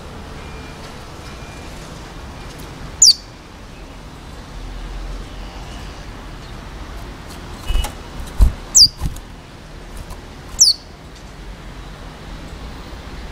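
Young male curió (chestnut-bellied seed finch), still in brown plumage, giving three sharp, high notes that slur quickly downward, spaced a few seconds apart. A few low thumps come between them.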